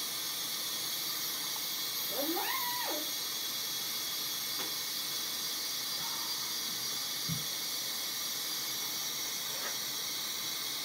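Water running from a bathroom sink faucet into a balloon held over the spout, a steady hiss as the water balloon fills. About two seconds in, a short squeal rises and falls in pitch.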